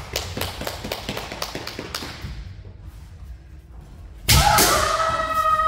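Kendo bout: bamboo shinai clacking together and bare feet on the mat in quick sharp knocks. About four seconds in comes a sudden hard strike, followed by a long, high kiai shout from a woman fencer.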